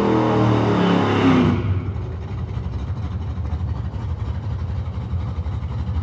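Drag-race car engine running hard with its pitch falling away. The loud engine sound drops off about a second and a half in, leaving a lower, uneven engine rumble.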